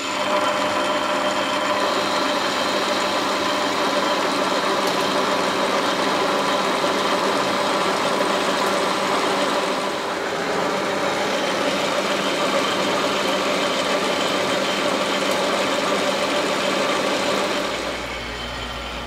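Metal lathe running under cut, boring out the bore of a four-jaw chuck's backing plate: a steady machine hum with a constant cutting hiss. The lathe winds down near the end.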